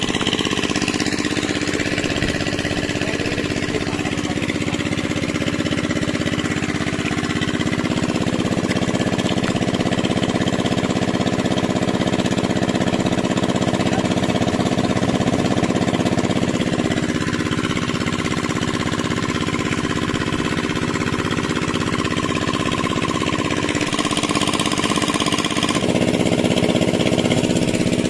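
Engine-driven pump machine running steadily with an even chugging beat, pumping water out to drain the fishing channel.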